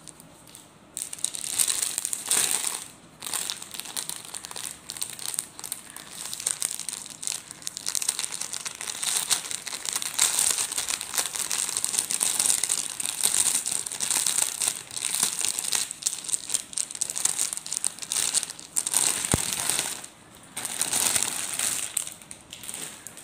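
Thin clear plastic garment bag crinkling and rustling in long bursts as hands handle it and pull it open, starting about a second in, with a short pause near the end.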